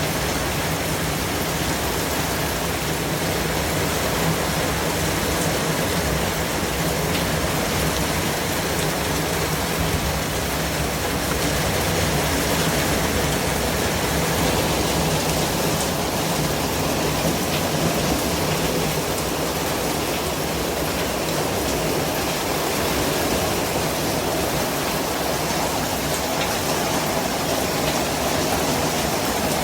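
Steady white-noise track: an even, unbroken hiss like heavy rain or rushing water, with a faint low hum underneath.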